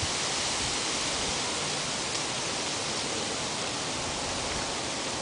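Steady, even hiss of outdoor background noise with no distinct events.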